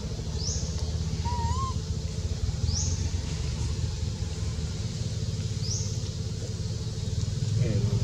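Steady low rumble of a running engine, with a short, high, rising chirp repeating about every three seconds and a brief wavering whistle about a second in.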